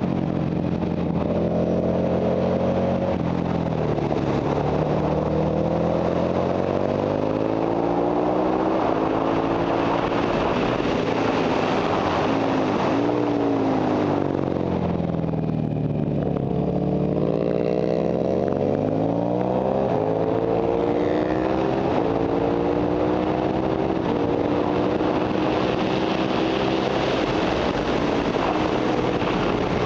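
Ducati Monster 1100 EVO's air-cooled V-twin engine under way on track, rising in pitch as it accelerates and dropping back at each upshift. About halfway through it winds down for a corner and then pulls up through the gears again, with wind noise on the microphone throughout.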